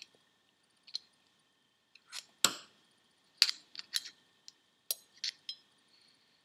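A steel screwdriver clicking and clinking against a C-clip and the metal bearing housing of a Holset HX40 turbocharger as the inner C-clip is forced into its groove: about ten short, sharp metallic clicks at irregular intervals, the loudest about two and a half seconds in.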